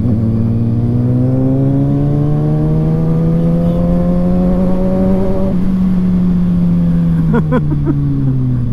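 Inline-four sport motorcycle engine accelerating hard, its pitch rising steadily for about five seconds. Then the throttle closes and the pitch sinks slowly.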